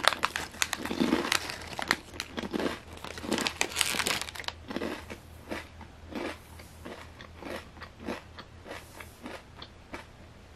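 Kettle-cooked potato chips being bitten and chewed close to the microphone: loud, dense crunching for the first few seconds, then smaller, evenly spaced crunches that fade toward the end.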